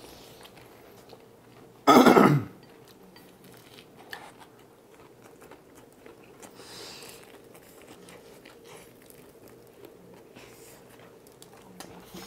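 One loud, short cough from a man about two seconds in, then soft chewing and mouth sounds of people eating.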